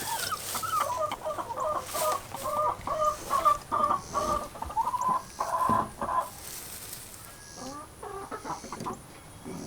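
Hens clucking: a quick run of short, pitched clucks, busiest in the first six seconds and thinning out after. A few sharp knocks are mixed in.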